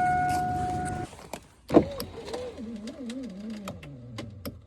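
Power window motor in a 2002 GMC Sierra's driver's door running with a steady whine for about a second, then stopping, followed by a sharp click. The motor runs but does not move the glass: the window regulator is broken.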